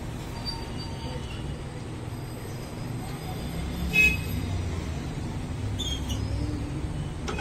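Steady low background rumble, with one short, ringing metallic clink about four seconds in as the motorcycle cylinder head is slid along the cylinder studs onto the cylinder; a few lighter clicks of metal parts follow.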